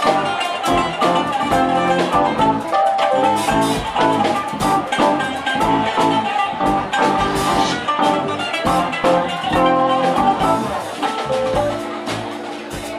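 Live jazz fusion band playing: quick plucked saz and electric guitar lines over a drum kit and bass guitar. Near the end the playing settles into held notes.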